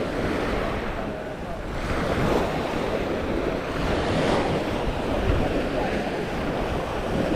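Surf washing onto a beach, with wind buffeting the microphone in a low rumble; the wash swells and eases every second or two.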